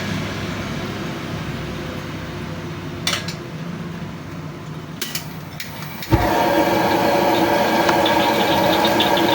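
Street-stall cooking: a steady background, with a few sharp metal clinks of utensils. About six seconds in comes a thump, and then a louder steady noise with some crackle.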